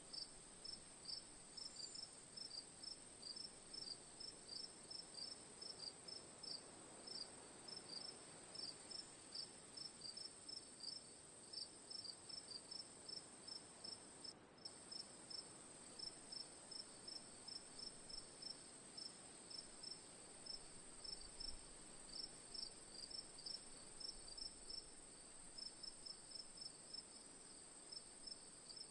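Crickets chirping faintly: short, evenly repeated chirps, two or three a second, over a steady high-pitched drone, with a brief break about halfway through.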